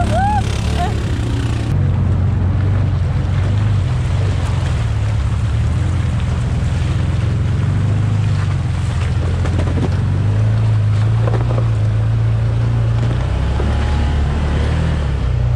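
Side-by-side UTV engine running steadily as the machine crawls along the trail, with water splashing through the first couple of seconds and wind on the microphone.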